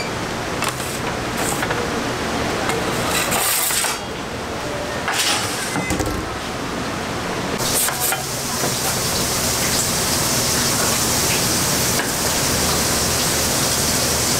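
Kitchen clatter: a metal pizza peel scraping and knocking against the deck oven's floor and door frame as pizzas are slid in, over a steady kitchen hum. From about the middle a steady high hiss joins.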